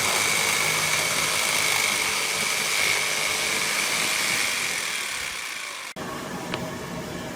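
A machine running steadily: a high whine over a rushing noise, easing off slightly, then cut off abruptly about six seconds in, leaving a quieter background.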